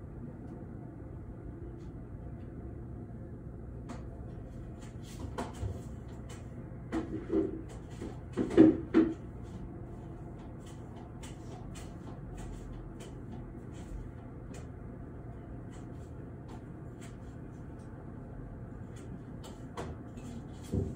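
A few sudden knocks and clatters over a steady low hum, the loudest a short cluster about eight to nine seconds in, with another single knock near the end.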